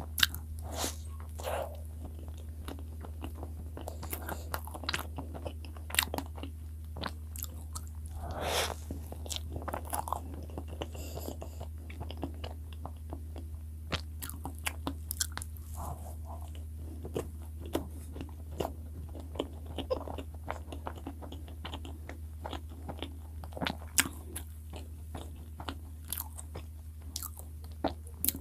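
Close-miked mouth sounds of a person biting and chewing soft cream-filled bread: many sharp wet clicks and smacks, over a steady low hum.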